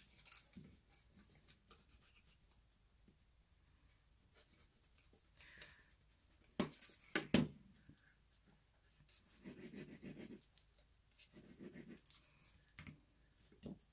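Faint scratching and rubbing of a bone folder and fingers working cardstock, pressing the flaps of a paper box into its corners. There are a few sharp clicks a little past halfway and two short patches of rubbing near the end.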